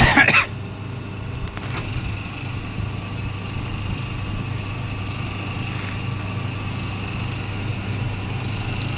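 Double-die paper plate making machine running with a steady low motor hum and a faint high whine, after a short loud clatter right at the start.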